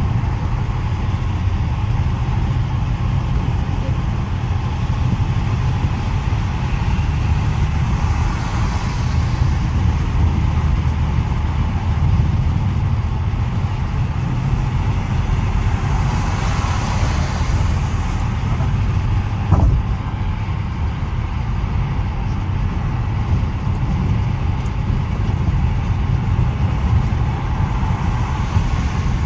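Road and engine noise heard inside the cabin of a car driving at highway speed: a steady low rumble with tyre and wind hiss that swells louder twice, and a single sharp click about two-thirds of the way through.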